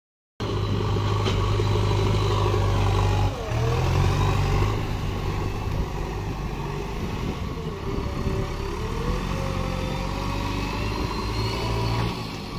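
Diesel engine of a JCB 3DX backhoe loader running under load as it pushes and scoops earth with its front bucket. The engine note shifts about three seconds in, and a faint whine rises and falls now and then.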